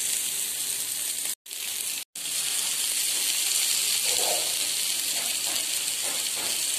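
Spice-coated Indian mackerel (bangda) shallow-frying in a non-stick pan: a steady high sizzle, cut off briefly twice about a second and a half and two seconds in.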